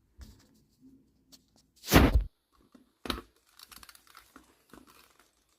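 Plastic casing of a vintage ball mouse being handled as its top shell is worked loose: small clicks and scrapes, one loud knock about two seconds in and a sharp click about a second later.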